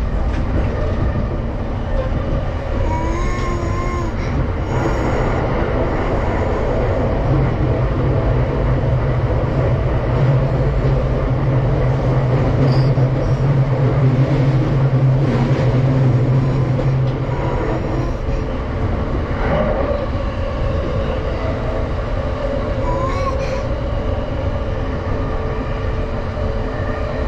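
Running noise heard from inside a JR East Tokaido Line commuter train: a steady rumble of the wheels on the rails. A low hum grows louder for about ten seconds in the middle.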